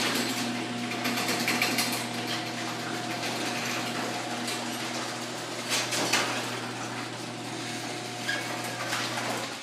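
LiftMaster 1/2 HP garage door opener running steadily as it drives the door: a constant motor hum with a steady whine above it and scattered rattling clicks.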